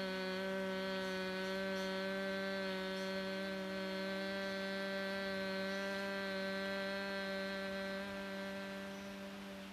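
A woman's long, steady closed-mouth hum on one low note: the humming exhale of bhramari (bee breath) pranayama. It tapers off near the end.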